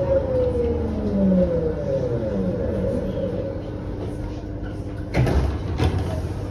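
Berlin U-Bahn train's electric traction motors whining with a steadily falling pitch as it slows into a station, over a low running rumble. Two sharp knocks come about five and six seconds in.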